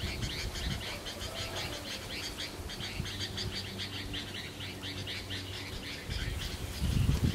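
Outdoor wildlife chirping: a fast, steady run of high, evenly repeated chirps, many to the second. Low rumbles come in on the microphone near the end.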